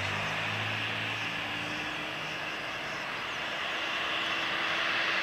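Airbus A320neo's Pratt & Whitney geared turbofan engines at takeoff thrust as the jet climbs out: a steady rushing jet noise, growing slightly louder near the end.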